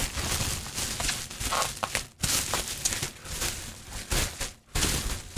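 Packing paper and packaging crinkling and rustling in irregular handfuls as a shipping box is unpacked, with two brief pauses.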